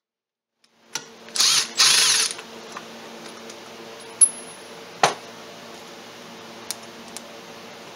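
A handheld power tool runs in two short bursts, the second a little longer, then two sharp clicks follow over a low, steady hum.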